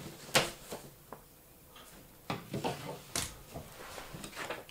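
Hard plastic parts of a Transformers Earthrise Sky Lynx figure being handled and set down: irregular clicks and knocks, the two loudest about a third of a second in and about three seconds in.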